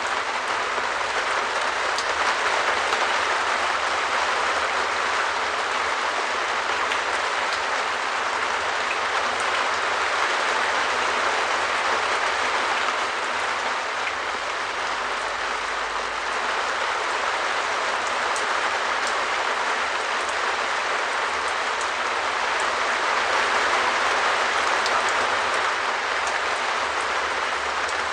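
Steady rain falling on a shed roof: a dense, even patter of drops with scattered sharper single drop hits.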